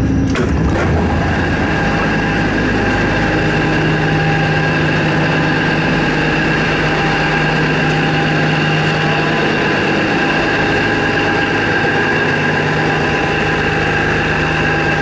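Diesel railcar engine idling steadily at the platform, a constant hum with a few fixed whining tones. Right at the start a few short knocks as the door opens.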